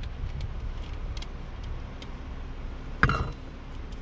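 A single sharp knock with a short ring about three seconds in, a soy sauce bottle set down into a metal cup holder, preceded by a few faint small clicks. A low steady rumble of wind runs underneath.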